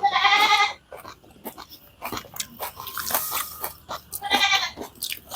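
A short, high-pitched bleat-like vocal sound from a person at the start and another about four seconds in, with crunching and chewing of crisp panipuri shells and scattered clicks between them.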